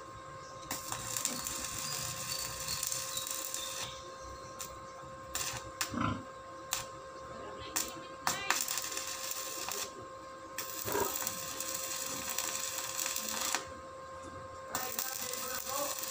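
Electric arc welder crackling as it welds a steel gate frame, in three runs of a few seconds each with short sputters and clicks from striking the arc in between. A steady high hum runs underneath.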